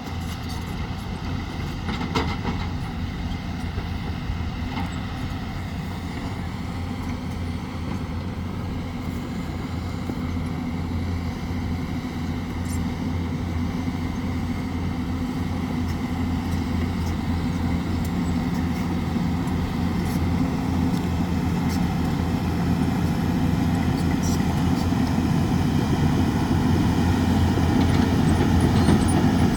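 Hyundai excavator's diesel engine running steadily under load, growing gradually louder, with a few faint knocks about two seconds in.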